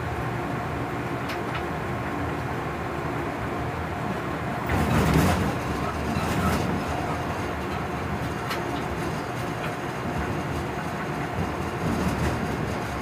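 Running noise of a DB class 139 electric locomotive heard in its cab: a steady rumble of wheels on rail with a few short clicks, and a louder surge of noise about five seconds in.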